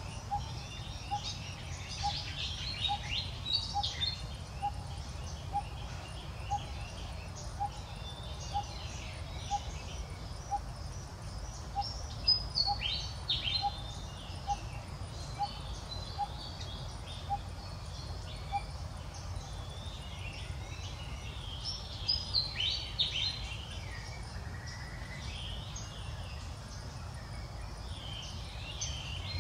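Outdoor ambience: a steady low rumble under a short, faint pip repeating about twice a second through the first half. Over it come bursts of high chirping calls a few seconds in, near the middle, and about three-quarters through.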